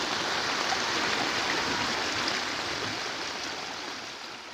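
Fast-flowing floodwater rushing steadily, a continuous noise that fades away over the last second.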